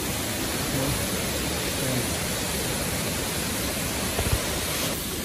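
Steady rush of a waterfall, water pouring down over rock cascades.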